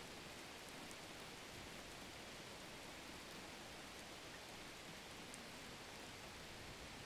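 Faint, steady hiss-like noise with no distinct events.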